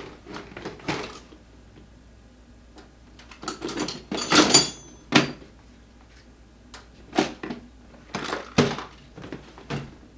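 Hand tools and metal parts being handled during a scooter repair: scattered knocks, clicks and rustles, with a brief metallic clatter about four and a half seconds in.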